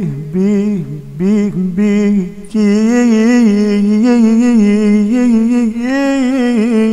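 A male voice singing an Arabic devotional song (nasheed) without accompaniment. It sings a run of short ornamented notes, then holds one long note with vibrato from about two and a half seconds in.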